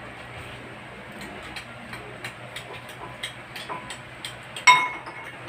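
Small clicks and taps of eating and handling tableware, then near the end a loud clink of a drinking glass with a brief ring, and a second sharp knock just after.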